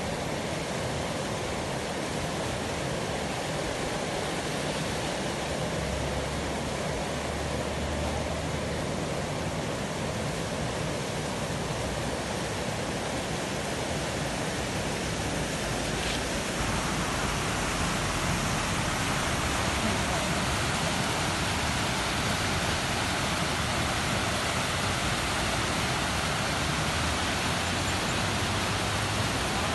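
Steady rushing of a fast mountain stream tumbling over rocks, a constant roar of water. It becomes louder and hissier a little past halfway.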